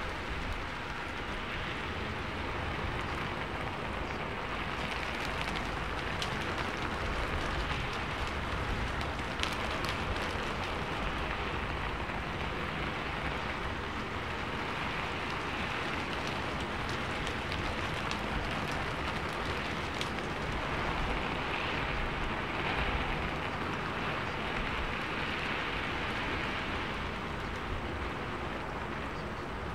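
Steady rain-like rushing noise with a few sharp ticks, the masking background track that hides the quiet affirmations of a subliminal recording.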